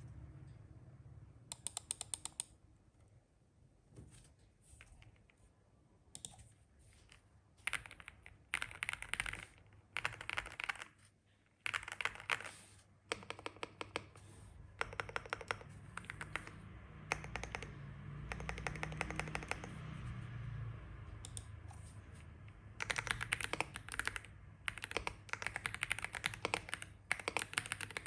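Aula M75 aluminium-cased mechanical keyboard being typed on. Keystrokes come in short irregular bursts with pauses, then turn into fast continuous typing for the last five seconds or so.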